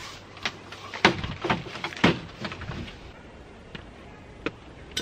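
Things being packed into a hard plastic roof-top cargo box: a series of sharp knocks and thumps, the loudest about one and two seconds in, then a few lighter clicks.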